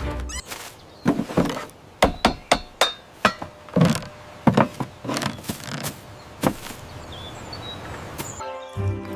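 Cartoon building sound effects: a run of about a dozen irregular hammer blows and knocks, which stop about six and a half seconds in.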